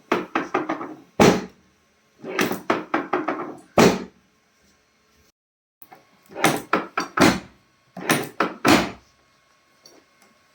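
Sharp knocks and thuds from chiropractic adjustments, in quick runs of several strikes separated by pauses.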